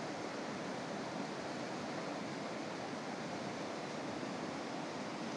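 A stream rushing steadily.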